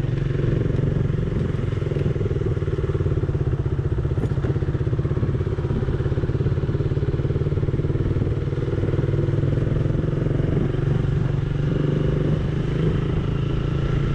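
Motorcycle engine running steadily while riding, heard from the rider's seat, with a fast even pulse of the engine firing.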